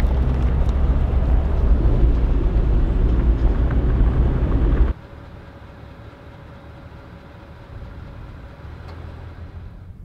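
Vehicle running slowly on a dirt road, a loud steady low rumble that cuts off suddenly about five seconds in. It gives way to a much quieter outdoor background with a faint steady hum.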